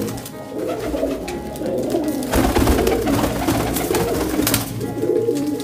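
Domestic pigeons cooing in an enclosed loft, with bursts of wing flapping from a pigeon on the ledge about halfway through and again near the end.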